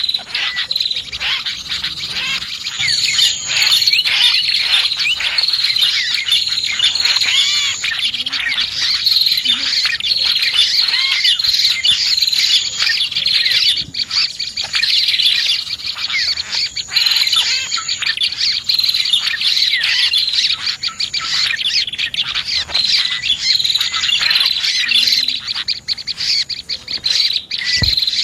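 Dense, continuous chirping and trilling of prinias (prenjak) and other small songbirds, many short quick notes overlapping without a break, with a thin high note coming and going above them.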